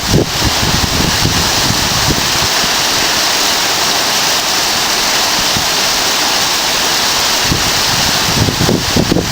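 Steady rushing hiss, with gusts of wind buffeting the microphone near the start and again near the end.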